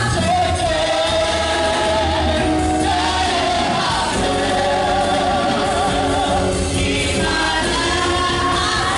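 Church choir singing a gospel song, with a long held note wavering in vibrato around the middle.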